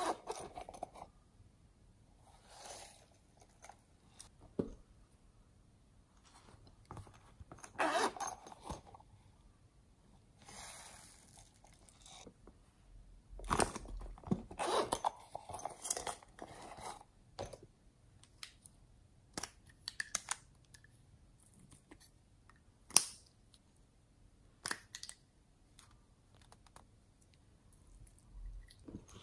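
Close-up handling of a silicone zipper pouch: scattered crinkles, clicks and scrapes, with a busier crackly stretch about halfway through and a sharp click later on.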